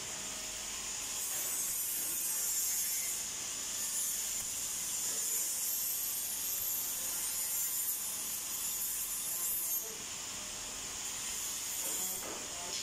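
Electric welding arc on sheet metal, giving a steady high hiss that cuts off about ten seconds in, with a short burst again near the end.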